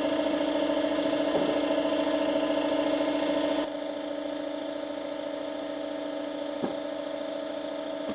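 Electric power tool motor running steadily with a constant whine. It drops in loudness about three and a half seconds in, then cuts off abruptly at the very end.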